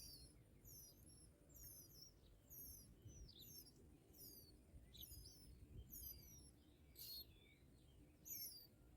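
Faint, high, thin bird calls repeated over and over, each a short wavering note sliding downward, about one and a half a second, over a faint low rumble.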